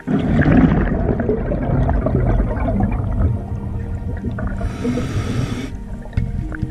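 A scuba diver's exhaled bubbles rushing and gurgling from the regulator, with a sudden start and lasting about six seconds. A higher hiss comes briefly near five seconds in, and a second exhalation begins at the end.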